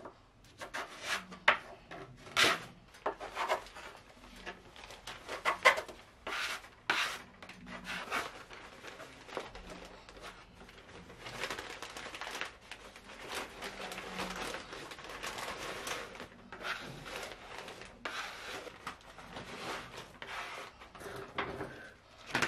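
Plastic squeegee scraping over vinyl contact paper in repeated strokes, smoothing it down onto a desk top: a run of short scrapes, then longer continuous ones.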